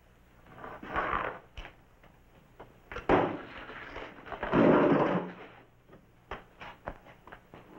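A wooden chair scraping and knocking as a man rises from it, then a few boot footsteps on a wooden floor as he walks off. Earlier there are a couple of shorter scuffing sounds.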